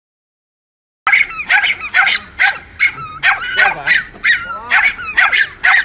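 Small dog yapping in quick, high-pitched barks, about three a second, starting about a second in after silence.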